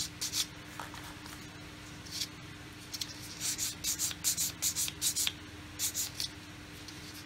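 Sanding sponge rubbed in short quick strokes over a small plastic model kit part, taking off the sprue nibs: a few strokes near the start, then a run of strokes in the second half. A faint steady hum lies underneath.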